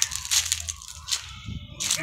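Footsteps crunching on dry fallen leaves and ground litter: several short, separate crunches.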